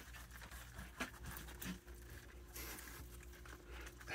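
Raccoons and a young skunk eating peanuts and seed from feed dishes on a wooden deck: faint, scattered crunching and clicking, with a steady low hum underneath.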